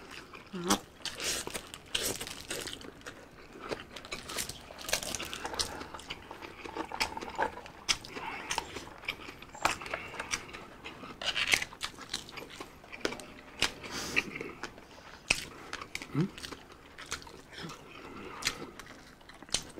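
Two people eating biryani and tandoori chicken with their hands: chewing and mouth sounds, with many short clicks scattered throughout.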